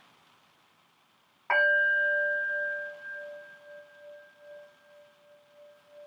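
A hand-held metal singing bowl struck once with a wooden striker about a second and a half in, then ringing on in a long, slowly fading tone that gently wavers.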